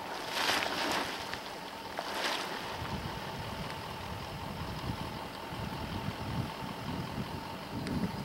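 Hot spring pool bubbling, with rising gas bubbles bursting and splashing at the surface twice, about half a second and about two seconds in. After that, wind gusts buffet the microphone.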